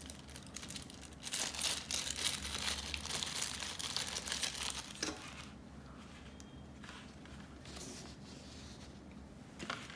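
Small clear zip-lock plastic bag of bicycle mount clamps crinkling as it is handled, loudest in the first half. A single tap about five seconds in, then only faint rustling.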